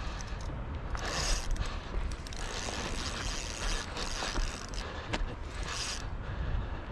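Fishing reel ratcheting in stretches as a striped bass is played on the line.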